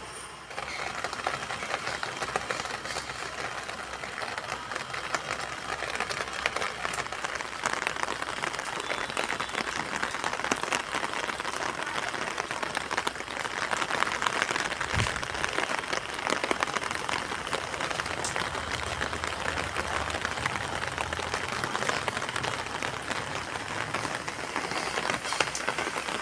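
Steady rain falling and pattering on hard surfaces, a dense crackling hiss that sets in about half a second in.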